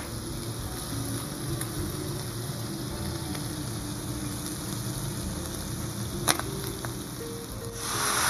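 Squid rings and cuttlefish pieces frying in oil in a steel paella pan over very low heat: a steady sizzle. There are two sharp clicks, one at the start and one about six seconds in, and the sizzle grows suddenly louder near the end.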